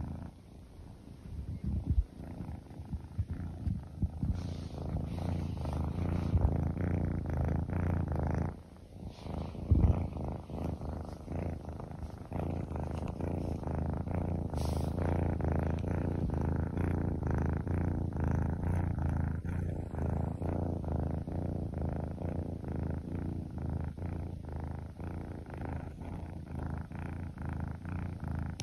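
Kitten purring steadily close to the microphone, a continuous low rumble that breaks off briefly about eight and a half seconds in. A few soft thumps come in the first ten seconds.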